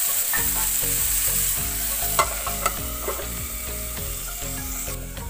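Chicken, onion and tomato frying in oil in a karahi, a steady sizzle, with a couple of sharp knocks against the pan a little after two seconds in.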